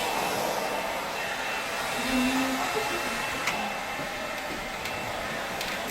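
Handheld hair blow dryer running steadily with a faint high whine, then switched off suddenly near the end.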